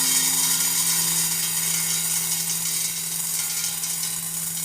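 A stream of metal ball bearings pouring into a metal tray, a dense continuous metallic clatter that eases slightly toward the end.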